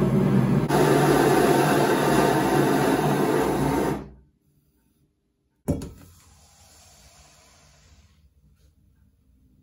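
Gas torch running with a steady loud hiss, cutting off about four seconds in. After a short silence, a red-hot steel part is dropped into a pan of oil with a sudden sharp hiss that fades into a faint sizzle over the next two seconds as it quenches.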